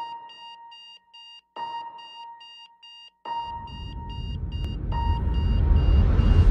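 Electronic alarm-clock beeping in a steady pulse of about four beeps a second, with a lower tone that starts again about every second and a half. From about halfway a low rumble swells, rising steadily in loudness, and leads into the music at the end.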